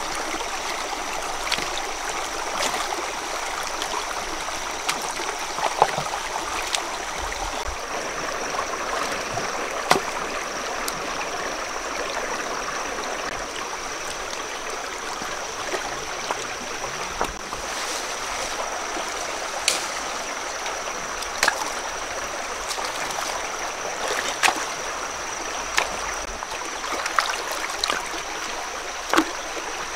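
Shallow stream running over rocks, with scattered sharp knocks and small splashes as stones are lifted and set down in the water. A steady high-pitched tone runs underneath.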